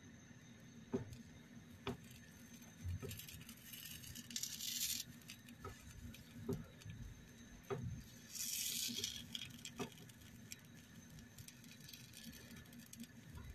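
Faint cooking-pan handling: a silicone spatula tapping and scraping at pancakes in a nonstick pancake pan, with scattered soft clicks and two short hissy scrapes about four and eight seconds in.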